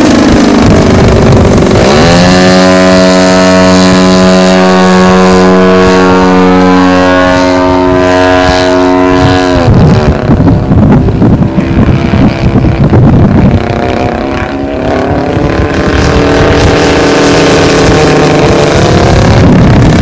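The ZDZ 80 single-cylinder two-stroke gasoline engine of a 33% RC CAP 232, turning a 26x10 prop, runs at a steady pitch in flight, then its note drops away suddenly about ten seconds in. Strong wind buffets the microphone in gusts, and the engine comes back fainter and wavering near the end.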